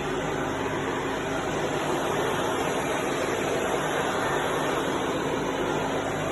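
Deckel FP4A CNC milling machine running steadily, an even machine noise with a constant low hum that does not change.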